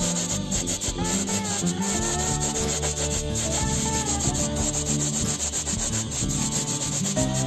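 Hand sanding: sandpaper rubbed repeatedly over a part of the toy crane being stripped for restoration, a continuous run of quick rubbing strokes. Music with steady pitched notes plays under it.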